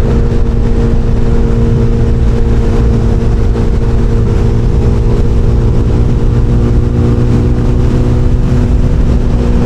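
SBM 250 S motorcycle engine running at a steady highway cruise, about 6,000 rpm at around 110 km/h. It holds a constant pitch over a heavy low rumble.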